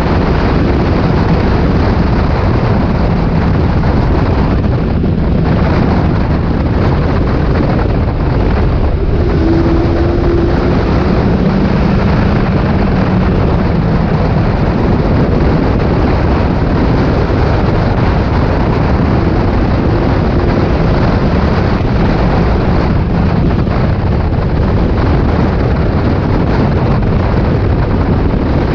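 Mk4 Ford Fiesta stock car's engine running hard under race load, heard inside the stripped-out cabin along with wind and road noise. It is loud and continuous, and the engine pitch shifts a little now and then.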